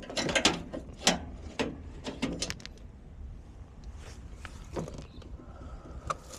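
Hand tools and metal parts being handled: a run of sharp clicks and clanks, most of them in the first three seconds and a few more near the end, over a steady low hum.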